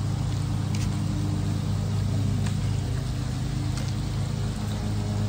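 Propane burner running steadily under a cast-iron Dutch oven of bowfin frying in oil: a low, even rumble with a frying hiss over it and a few light clicks.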